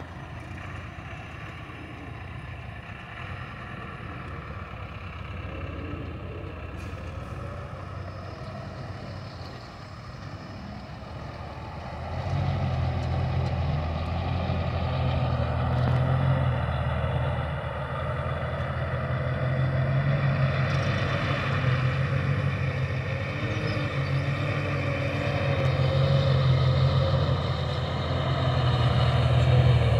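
Old truck's engine running, fairly quiet at first, then louder and pulling harder from about twelve seconds in.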